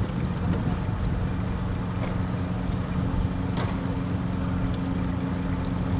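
Wind rumbling on the microphone, with a steady low boat-motor hum that sets in about three seconds in.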